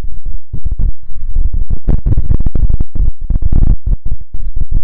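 Wind buffeting the microphone: loud, irregular low rumbling gusts that come and go several times a second.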